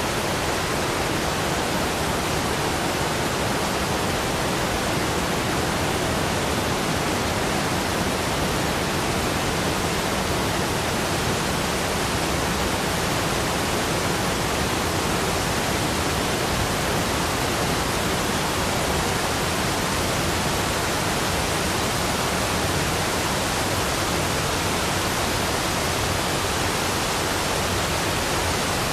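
Running water rushing steadily, an even hiss with no splashes or changes.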